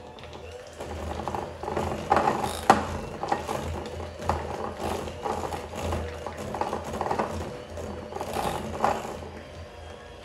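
Electric hand mixer running, beating softened cream cheese in a bowl, with a steady motor hum and irregular clacks.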